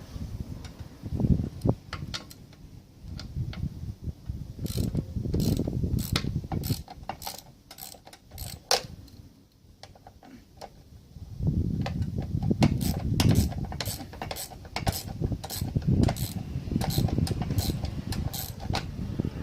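Hand tools working a nut or bolt on metal: a ratchet spanner clicking in short irregular runs, with knocking and rubbing of tool and parts.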